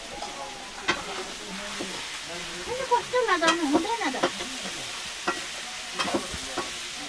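Light clicks of hands and food on steel plates as children eat, over a steady hiss. A short wavering voice-like sound comes in the middle.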